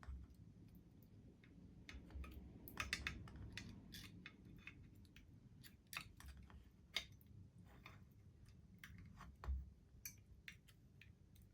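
Faint irregular clicks and taps of small parts of a Märklin HR 800 N model locomotive being handled and fitted by hand, with a short flurry about three seconds in and a few sharper knocks later.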